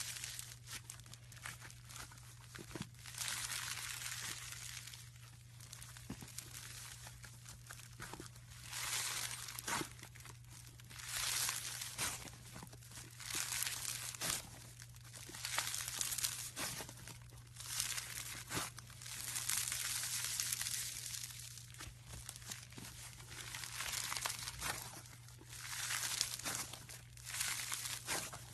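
Slime being squeezed and stretched by hand, making surges of crackly, squishy noise every second or two, over a steady low hum.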